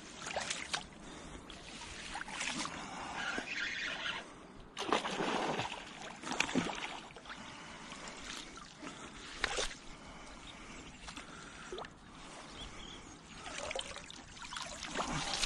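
Water splashing and sloshing at the bank in irregular bursts as a hooked pike is played in close toward a landing net.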